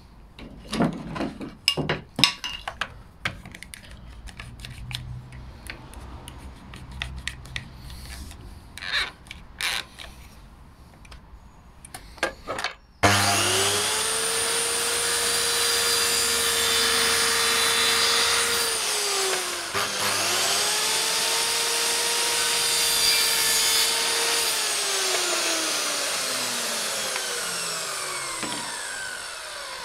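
Wooden spindle pieces are handled and knocked into place on a mitre saw bed, several sharp knocks. About halfway in, the mitre saw's motor starts abruptly and runs with a steady high whine as the blade cuts through a wooden spindle. It stops briefly and restarts, and near the end it winds down with falling pitch after the trigger is released.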